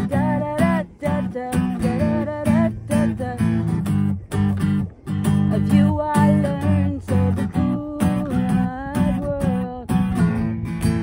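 Acoustic guitar strummed in a steady rhythm, with a higher melody line over it that bends and wavers in pitch.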